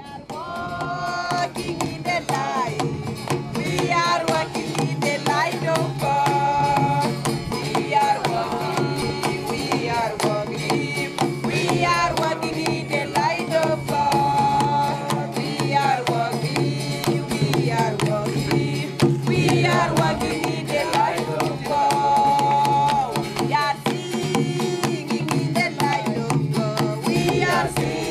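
Background music: a melody with gliding notes over a steady low drone, with drum beats throughout.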